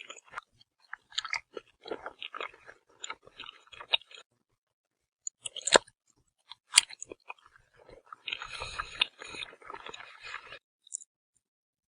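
Close-up crunchy biting and chewing in irregular bursts, with two sharp snaps around the middle. The crunching stops shortly before the end.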